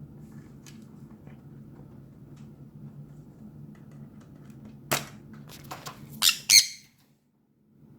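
Parrot squawking: one sharp squawk about five seconds in, a few smaller calls, then two loud, harsh squawks close together near the end, over a low steady hum.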